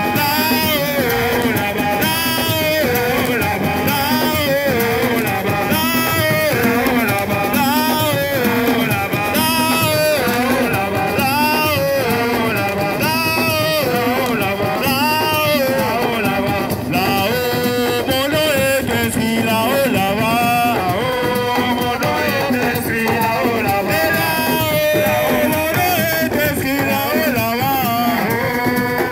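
Loud music with singing: a wavering melodic line over dense percussion, steady throughout.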